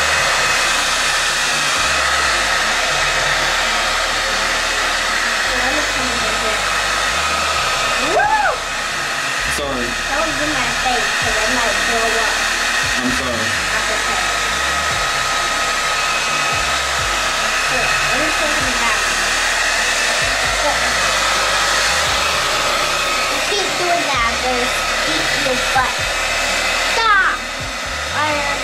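Pet grooming blow dryer running steadily on a wet puppy's coat: a constant rush of air with a steady high motor whine. Brief rising-and-falling squeals cut in about eight seconds in and again near the end.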